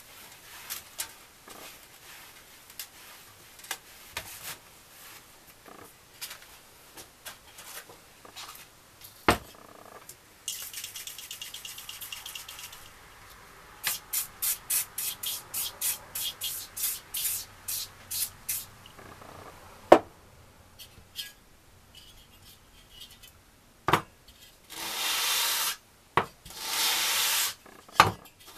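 An aerosol can of WD-40 hisses in one long spray and then a quick run of short squirts onto 500-grit sandpaper, after some quieter rag-wiping and a few knocks as things are set down on the bench. Near the end, an air-cooled engine's finned cylinder head is rubbed back and forth in long strokes on the wet sandpaper, lapping its gasket face flat.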